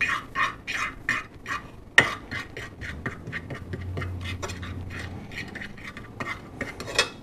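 Fork stirring seasoned flour in a shallow dish: a quick run of light scrapes and taps, about four or five a second.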